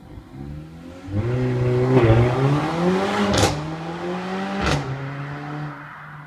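Mercedes CLA45 AMG's turbocharged four-cylinder engine accelerating hard with rising pitch, heard from inside the cabin. About three and a half seconds in, a sharp exhaust crack comes as the pitch drops on an upshift, and another crack follows just under five seconds in. After that the engine runs on at a steady, lower note.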